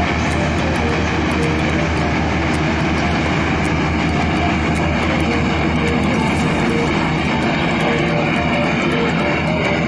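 Steady roar of a US Navy LCAC hovercraft's engines and lift fans running as it crosses the water, with a deep hum underneath that eases off near the end. Guitar background music plays over it.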